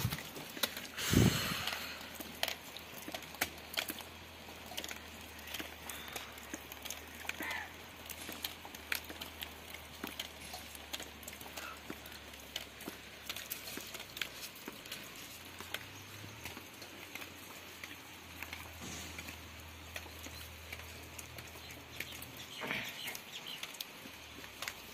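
Bare hands slapping and patting a large mound of wet pugged clay, a run of soft, irregular slaps with a louder one about a second in.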